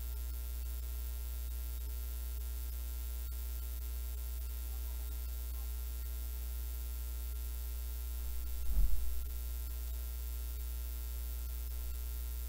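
Steady low electrical hum with faint hiss, and one short louder sound about nine seconds in.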